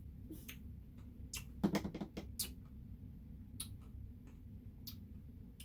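Eating sounds of someone taking bites from a Blizzard cup with a spoon: a few scattered soft clicks and taps, with a short cluster of them about two seconds in.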